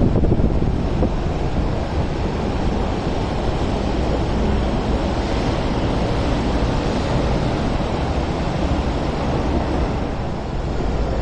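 Steady rumble of wind on the microphone mixed with MTR Kwun Tong Line electric trains running along the elevated viaduct.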